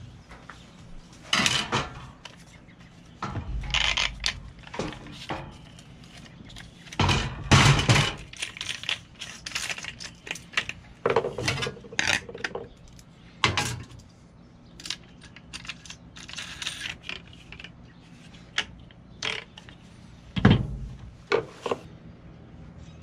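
Irregular metallic clinks, clatter and knocks of tools being handled and set down on a steel breaker-panel cover, with a cordless angle grinder and its cutting disc being handled while the grinder is switched off. The loudest knocks come about a third of the way in and again near the end.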